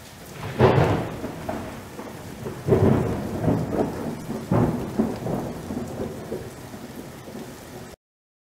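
Thunderstorm sound effect: steady rain hiss with three loud thunder cracks, each trailing off into a rolling rumble, about half a second, two and a half and four and a half seconds in. It cuts off abruptly near the end.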